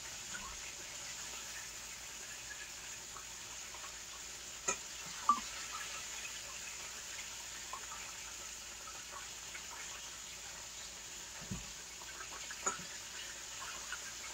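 Chicken wings frying in oil, a faint steady sizzle. A few light knocks and clicks of cookware sound around the middle and near the end.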